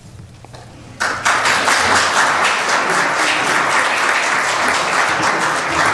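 Congregation applauding, starting about a second in and carrying on steadily.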